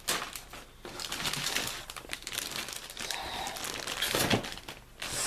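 Thin plastic parts bag crinkling and rustling as plastic model-kit sprues are worked back into it, in irregular bursts with short lulls about a second in and near the end.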